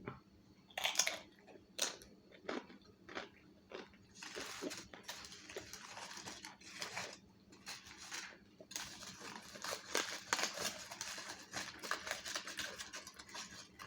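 Eating sounds close to the microphone: chewing and biting, with sharp separate clicks at first, then denser rustling and crinkling from about four seconds in.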